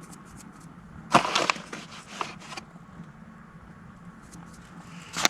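Handling noises from cooking gear: a burst of scraping and rattling about a second in that lasts about a second and a half, and a sharp knock near the end, over a steady low hum.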